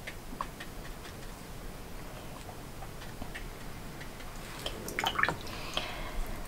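Faint taps and light scratching of a watercolour brush dabbing paint onto paper, with a short cluster of clicks and rustling about five seconds in.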